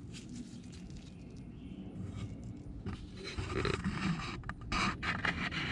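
Warm engine oil draining from a Fumoto drain valve through a tube into a plastic jug: an irregular, splashy trickle that grows louder about three seconds in.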